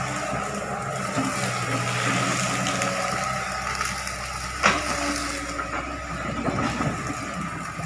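Hitachi Zaxis 110 excavator's diesel engine running steadily with a high steady whine as the boom and bucket move. One sharp knock comes a little past halfway.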